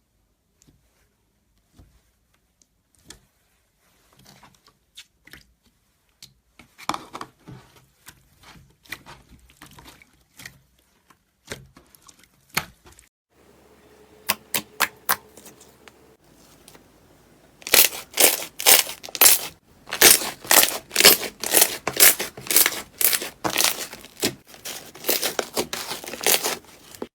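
Slime being squeezed and pressed by hand, giving sticky crackles and pops: scattered and soft at first, then a fast run of loud crackles over the last nine seconds or so.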